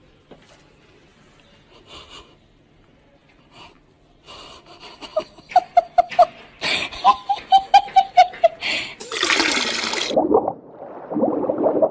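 A person laughing in a quick run of short bursts, starting about four seconds in after a quiet opening, followed near the end by a loud breathy rush of noise.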